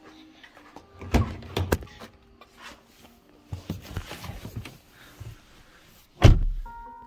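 A Hyundai sedan's driver door being unlatched and opened with two sharp clicks, someone climbing into the seat, then the door pulled shut with a heavy thunk near the end, the loudest sound. Faint background music plays underneath.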